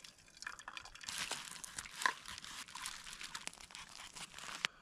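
Crinkling and rustling of a food pouch as it is squeezed and emptied into a plastic bowl, with scattered light clicks and one sharper click near the end.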